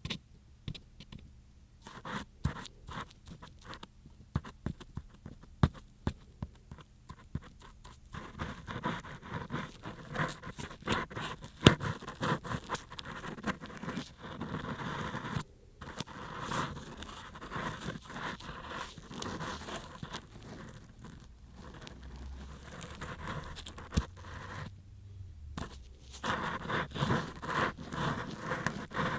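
Ear pick scratching and scraping in an ear, for ear-cleaning ASMR. Scattered light clicks come first, then close, steady scratching from about eight seconds in, broken by two short pauses.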